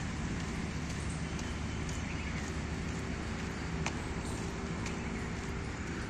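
Steady low rumble of outdoor background noise, with a single sharp click about four seconds in.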